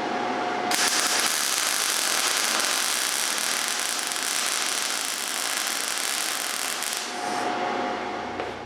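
MIG welding arc burning a bead: a dense, steady hiss that starts abruptly about a second in and cuts off after about six seconds. A steady hum is heard before and after the arc, and there is a click near the end.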